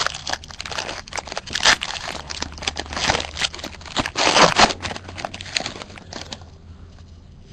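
A foil-wrapped 2012 Topps Tribute baseball card pack crinkling and tearing as it is ripped open by hand; the crackling stops about six seconds in.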